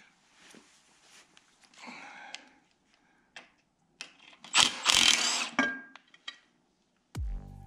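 Scattered metal clicks and knocks from hand tools working on a Dana 60 axle, with a loud scrape lasting about a second midway. Electronic music with a heavy bass beat cuts in near the end.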